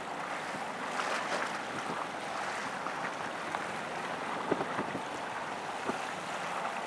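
Wind on the microphone over choppy sea water lapping, a steady rushing noise with a few brief knocks in the second half.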